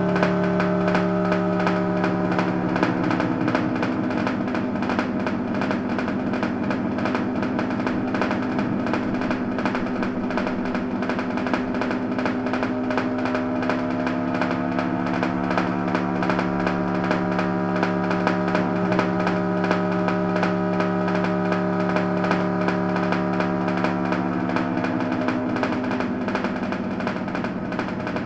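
Background music of sustained chords that shift every several seconds.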